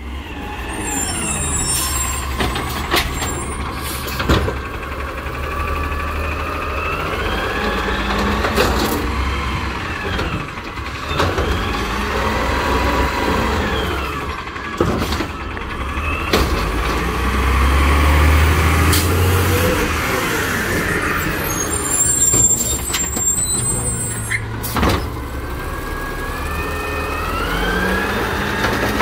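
Natural-gas automated side-loader garbage truck running as it pulls up to the curb. Its air brakes hiss near the start and again about three-quarters of the way through. Rising and falling hydraulic and engine whines run with occasional clanks, and the whine rises near the end as the arm lifts a trash cart.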